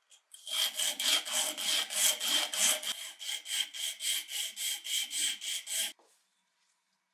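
Sandpaper rubbed by hand back and forth over the end of a wooden wrench handle: quick, even rasping strokes, about four a second, which stop abruptly about six seconds in.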